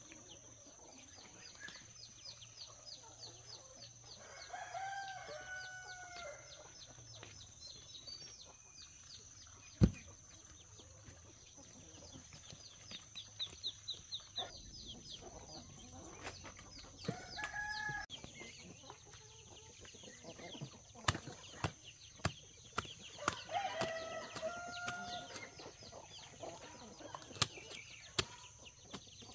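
Chickens on a farm: a rooster crows a few times, with hens clucking between. A single sharp knock comes about a third of the way in, and a run of sharp knocks or clicks follows in the last third.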